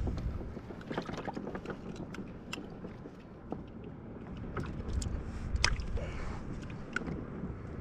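Scattered light clicks and knocks of hands handling fishing gear and bait on a plastic kayak deck, over a low steady rumble.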